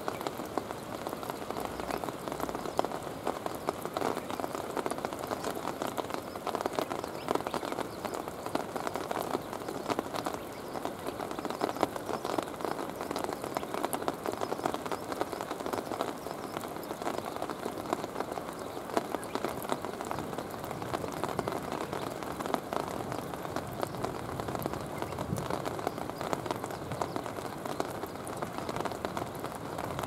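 Steady rain falling: an even hiss made of many small drop impacts, with no change in strength.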